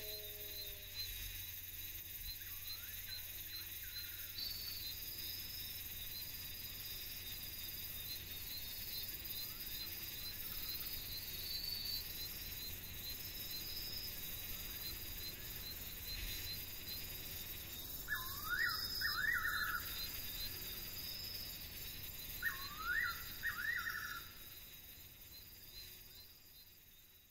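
Night-time African bush ambience: a steady chorus of crickets and other insects. Twice in the second half an animal gives a short run of three or four quick rising calls, and the sound fades out at the end.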